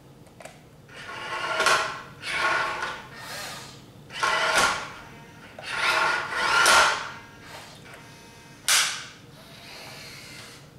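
Small electric motors and gears of a Hobby Engine 1/14-scale remote-control wheel loader whirring in about five short bursts, with a sharp click about halfway and another near the end.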